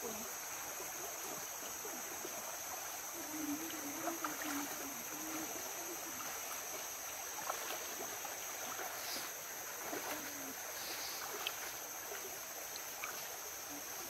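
Shallow rocky stream flowing steadily, with faint splashes of feet wading through the water. Faint distant voices come in briefly about three to five seconds in.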